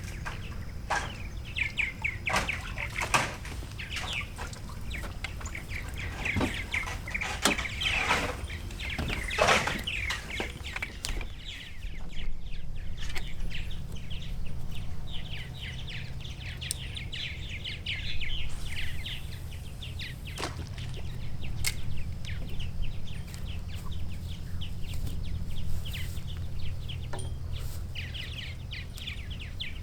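Birds chattering and calling in quick, rapid runs of high chirps, over a steady low rumble.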